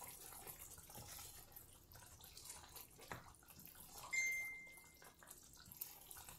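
Meat curry gravy simmering in a frying pan while a silicone spatula stirs it: faint bubbling and scraping, with a knock about three seconds in. A steady high tone lasting about a second sounds just after four seconds in.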